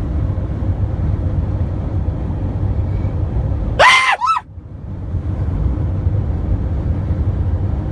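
Steady low road rumble of a van driving. About four seconds in, a brief loud high-pitched squeal in two quick parts, rising then falling, cuts over it.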